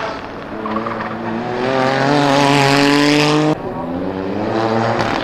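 Toyota GR Yaris race car's turbocharged three-cylinder engine running hard through a corner, with tyre squeal as it slides. A little over halfway the sound drops suddenly and the engine runs on at a lower, quieter note.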